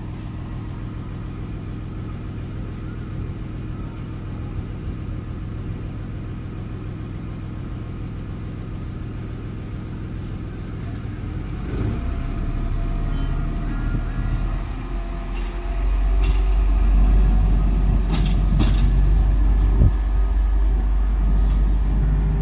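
A miniature railway locomotive's engine runs steadily at idle, then about halfway through works harder and louder as the locomotive pulls off the turntable and drives away along the track. A few sharp clicks come near the end.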